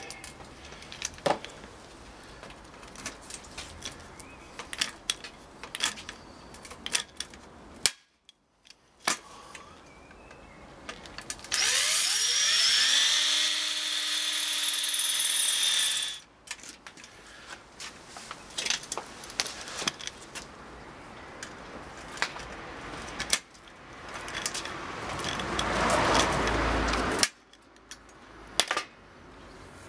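Cordless drill boring through a steel flue pipe: the motor whines up and runs steadily for about four seconds in the middle, between small clicks and knocks of handling. Near the end a rougher burst builds for a few seconds and stops suddenly.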